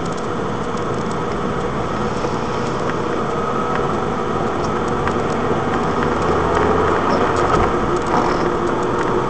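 Car driving along a road, heard from inside the cabin: steady engine and tyre noise that gradually grows louder as the car picks up speed.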